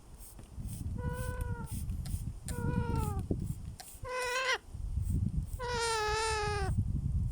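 Baby parrot calling: four drawn-out, meow-like calls, each sliding slightly down in pitch, the last one the longest and wavering.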